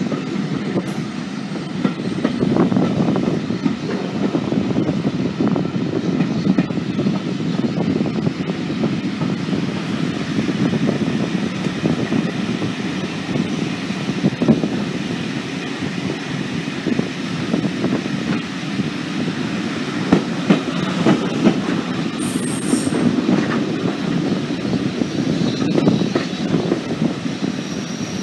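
Passenger train carriage running along the line, heard from its open window: a steady rumble of wheels on the track with scattered knocks over the rail joints.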